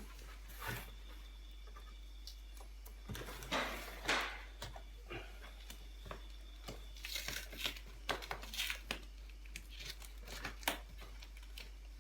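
Guitar packaging being handled and pulled at: irregular rustling, scraping and tearing of wrapping, with a few light knocks.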